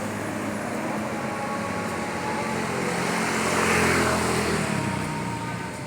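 A motor vehicle passing by: engine and tyre noise swell to a peak about four seconds in, then fade, over a steady background of traffic.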